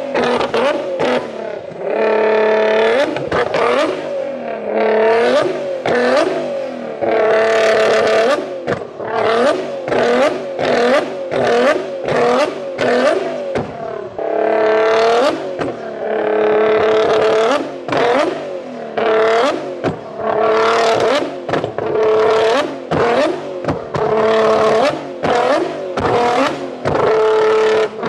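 A car engine revved hard again and again. Each rev climbs quickly, holds at a steady high pitch for about a second, then drops back.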